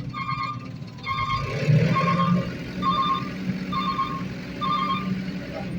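Backup alarm of a heavy vehicle beeping at a steady pace, a bit more than one beep a second, over a diesel engine running. The engine gets louder about one and a half seconds in, then settles.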